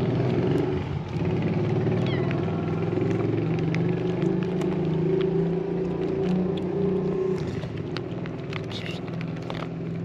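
A motor vehicle engine running steadily, a low hum that eases off somewhat after about seven and a half seconds, with faint scattered ticks over it.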